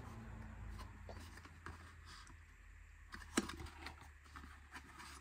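Faint handling noise of a small LED bulb kit's parts and packaging: light scattered taps and ticks, with one sharper click about three and a half seconds in.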